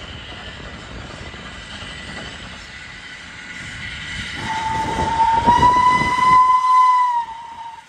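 Steam locomotive whistle blowing one long, slightly rising note of about three seconds, starting about halfway through, over the noise of the moving train.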